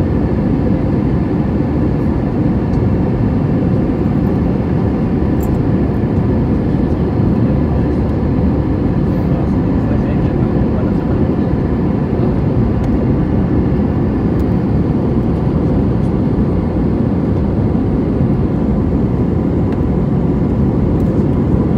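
Cabin noise of an Airbus A320ceo on approach, heard beside the wing: the turbofan engines and rushing air make a steady, even rumble, with faint steady tones above it.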